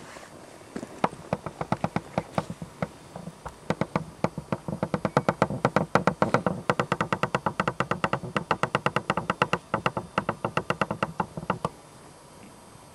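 A tripod's pan head squeaking as the camera is turned across the view. It makes a rapid string of short creaks, several a second, that starts about a second in and cuts off near the end when the turning stops.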